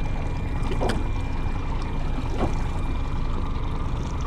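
Water lapping and splashing against a small boat's hull, over a steady low rushing noise, with a few brief soft splashes.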